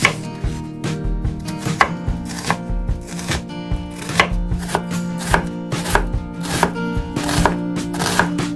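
Chef's knife cutting and chopping an onion on a bamboo cutting board: a steady run of crisp strikes of the blade on the board, about two to three a second. Background music with sustained tones plays underneath.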